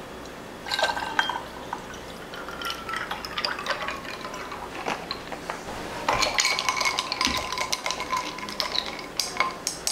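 Tomato-clam juice poured from a plastic bottle into a tall glass over ice, with the ice cubes clicking and crackling as the glass fills. From about six seconds in the drink is stirred, with ice clinking against the glass.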